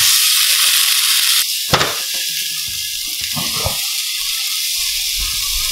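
Seasoned watermelon wedge sizzling in a hot non-stick frying pan, a steady hiss, with one sharp click about a second and a half in.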